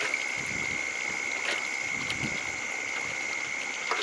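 A metal ladle scooping chicken broth out of a large cooking pot and pouring it into a bowl, with two sharp knocks of metal on metal, about one and a half seconds in and near the end. A steady high-pitched tone runs underneath.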